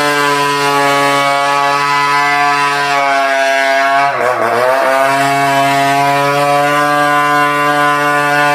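Chainsaw running at high speed while cutting through the trunk of a large merbau (ironwood) tree. About four seconds in, the engine pitch briefly sags and then picks back up.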